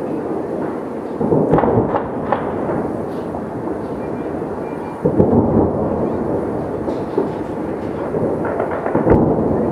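Fireworks display: aerial shells bursting in a continuous string of booms and crackle that run into one another. A cluster of sharp cracks comes about a second and a half in, and heavier booms about five seconds in and near the end.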